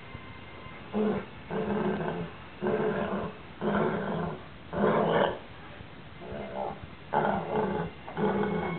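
Basset hound making a run of about eight low, drawn-out calls, roughly one a second, starting about a second in. It is his habit after eating sardines.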